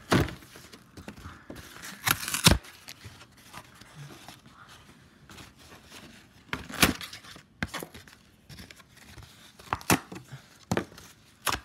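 Thin cardboard of a cereal box being ripped apart: several sharp cracks and snaps spread unevenly through, with quieter rustling and scraping of the torn pieces between.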